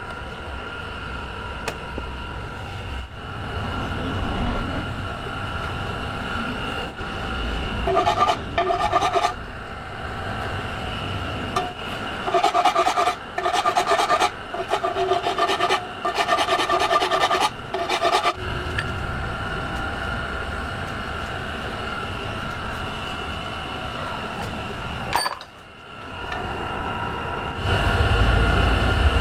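Workshop machinery running with a steady hum, broken by repeated stretches of rasping, scraping contact on an aluminium alloy wheel, about eight seconds in and again from about twelve to eighteen seconds in.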